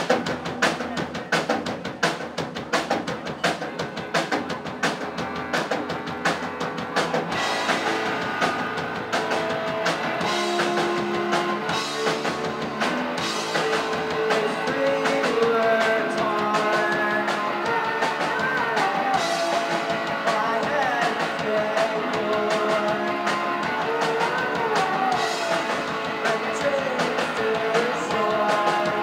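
Live two-piece rock band recorded from the audience. A drum kit plays a fast, steady beat alone for the first seven seconds or so, then electric guitar chords come in, and singing joins over them about halfway through.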